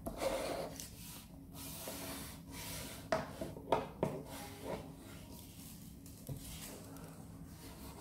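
Sprinkles being pushed around on a plate: soft rubbing and scraping with a few sharp light clicks, clustered about three to five seconds in and once more past six seconds.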